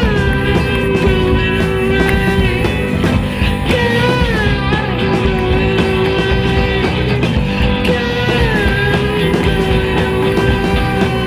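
Rock music soundtrack: a long held lead melody that slides between notes, the phrase repeating about every four seconds, over a steady beat.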